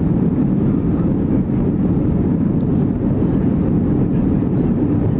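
Steady, loud rumble inside the cabin of an Airbus A330-200 rolling down the runway just after touchdown.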